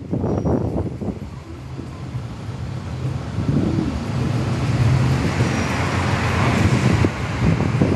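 Road traffic: car engines running with a low steady hum, and a hiss of traffic noise that grows louder from about three seconds in.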